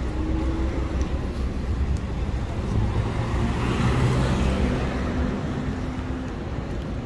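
Street traffic: a pickup truck drives past close by, its tyre and engine noise swelling to a peak about four seconds in and then fading, over a steady low rumble of traffic.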